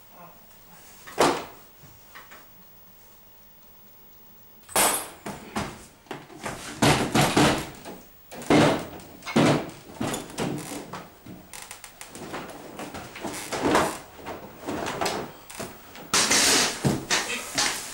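A single sharp knock about a second in, then from about five seconds in a long, irregular run of loud bangs, thumps and rattles, among them a door banging.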